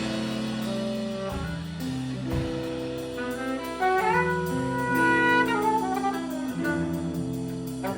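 Live band playing an instrumental passage of an indie-jazz song: a held, singing lead melody that climbs higher about halfway through, over sustained low notes.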